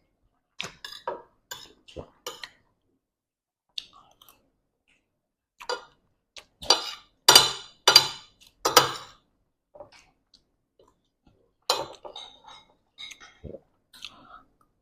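Cutlery and dishes clinking and clattering during a meal, in scattered short strikes, with a cluster of four louder clinks about seven to nine seconds in.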